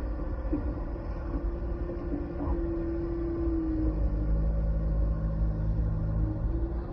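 An engine running steadily with a low rumble. About four seconds in, a lower hum joins and it gets slightly louder, as if the engine speeds up or a second machine comes closer.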